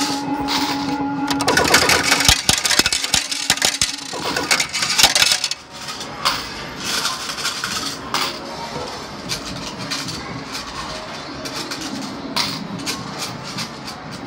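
Arcade fruit machine ambience: a steady electronic tone that stops about a second and a half in, then a few seconds of dense, rapid clattering clicks, settling into quieter scattered clicks over a continuous background din.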